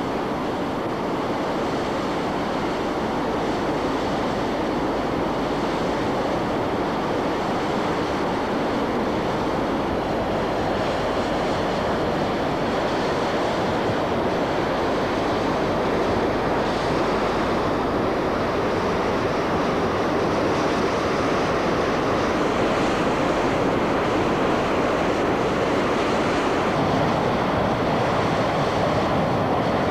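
Uncontrolled blowout of gas and oil jetting from a wellhead: a steady, loud rushing hiss with no let-up.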